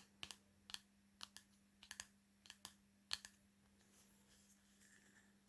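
Light, sharp clicks and taps from hands handling an oracle card deck's hardback guidebook and box, more than a dozen in the first three seconds, then fewer and fainter.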